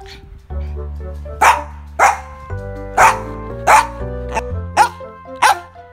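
A Maltese dog barking insistently, six sharp barks roughly one a second: demand barking to be taken out for a walk. Background music with a steady bass line plays underneath.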